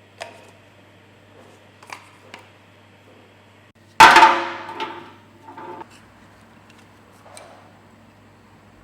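Hand tools being handled during an oil change: a few light clicks and taps, then about four seconds in one loud metallic clang that rings for about a second, followed by a couple of smaller knocks.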